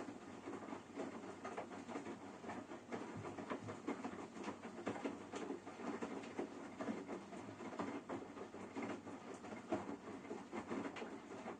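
Washing machine running, with a continuous irregular pattering and clicking.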